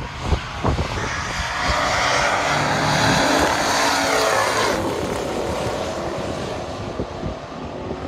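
Two classic muscle cars, a 1971 Dodge Charger and a 1970 Challenger each with a 426 Hemi V8, launching and running at full throttle side by side down a drag strip. The engine noise swells from about a second in, with pitch sweeps as the revs rise and fall. It drops off sharply about five seconds in and fades to a lower, quieter engine sound.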